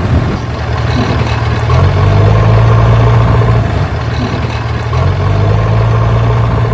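Steady low engine-like hum of the mini tractor, easing a little and building back up twice.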